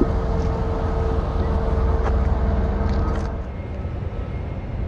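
Steady low vehicle rumble with a steady mid-pitched hum over it. About three and a half seconds in the hum drops out and the rumble becomes quieter.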